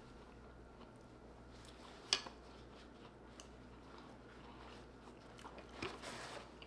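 A person chewing a mouthful of food with the lips mostly closed: soft mouth sounds, one sharp wet click about two seconds in, and a little more smacking and breath near the end.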